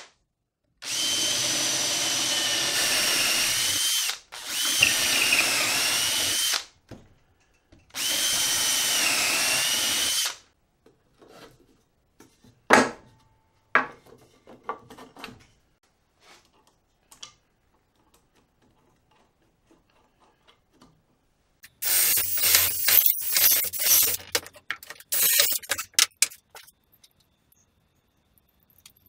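Cordless drill boring through stacked 2x4s with a long bit to take 3/8 threaded rod, in three runs of a few seconds each, its motor whine dipping in pitch as the bit loads up. Two sharp knocks follow. Later comes a spell of irregular clattering and clicking.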